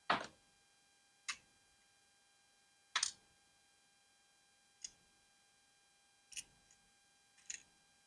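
Six sharp, irregularly spaced clicks of small metal watchmaking tools against the parts of a 1954 Smiths Empire pocket watch during disassembly. The first and third clicks are the loudest, over a faint steady electrical whine.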